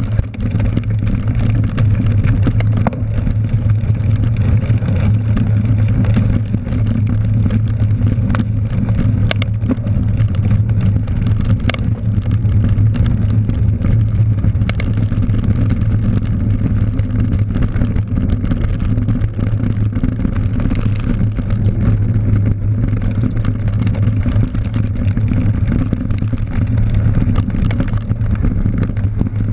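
Steady rushing wind noise and rumble on a cyclocross bike's mounted action camera as the bike rolls fast over a dirt course, with a few sharp clicks and knocks scattered through.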